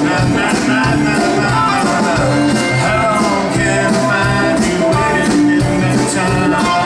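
Live band playing a country-rock song: acoustic and electric guitars, electric bass and keyboard over a steady drum beat.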